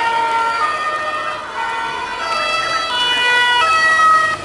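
Two-tone sirens of the police escort, more than one sounding at once, each stepping between a high and a low note every second or so.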